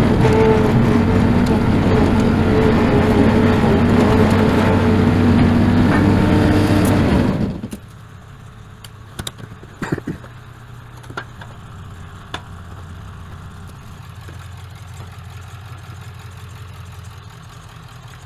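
An engine running loud and fast, then dropping suddenly about seven and a half seconds in to a much quieter, steady low idle. A few sharp knocks and clicks follow.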